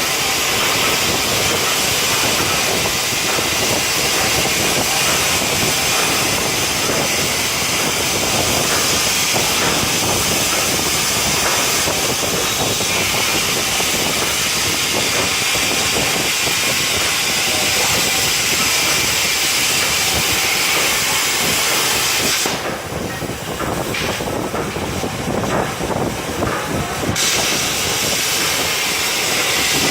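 CNC plasma cutter's Cutmaster plasma torch cutting metal with a loud, steady hiss and crackle. About 22 seconds in the hiss thins out and wavers for a few seconds, then comes back at full strength.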